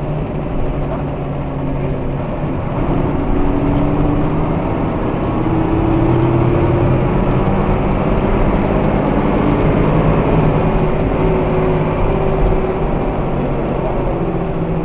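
Mercedes-Benz OF1214 bus heard from inside the cabin: its straight-six diesel pulling steadily, the engine note climbing gradually and growing louder a few seconds in, then holding.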